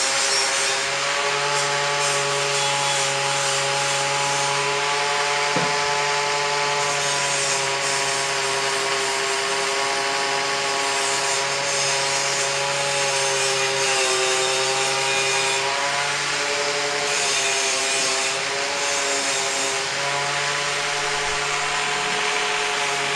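Electric angle grinder running continuously while grinding down welds on sheet metal: a steady motor whine over a harsh abrasive hiss, its pitch dipping briefly now and then as it is pressed into the work.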